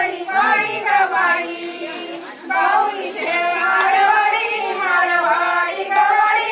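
Unaccompanied female singing of a traditional Marathi ovi, a grinding-stone wedding song, in melodic phrases with a short break between lines about two seconds in.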